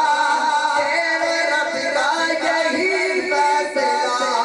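A man singing a naat, Urdu devotional verse, into a microphone. He draws out long held notes that slide and waver in pitch.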